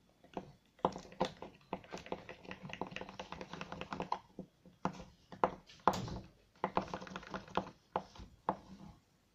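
Glue and yellow colouring being stirred in a small container: quick, irregular clicks and taps of the stirrer against the container, pausing briefly twice.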